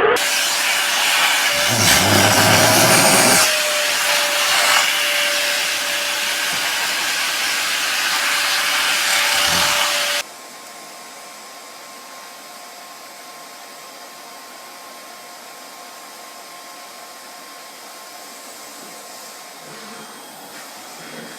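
Vacuum cleaner running with a loud, steady rushing noise that swells for a second or so near the start. About ten seconds in it breaks off abruptly and gives way to a much quieter, steady motor hum.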